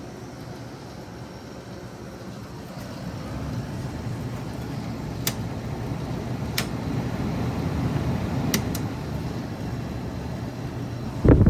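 A 1990 GE window air conditioner, made by Panasonic, running with a steady hum from its fan and compressor that grows louder a few seconds in, with a few light ticks. The owner suspects its bearings are starting to go. A loud knock comes near the end.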